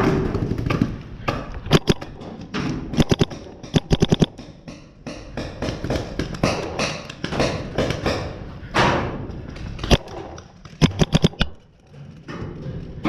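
Paintball markers firing in quick strings of sharp pops, several strings one after another, with thuds among them.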